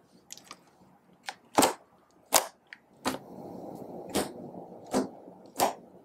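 Thick glitter slime being pressed and poked by fingers: six or so sharp pops roughly a second apart, with a stretch of soft squishing in the middle.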